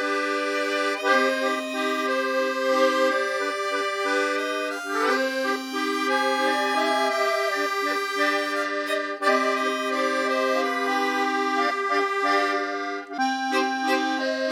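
Accordion music with sustained reedy chords under a moving melody line.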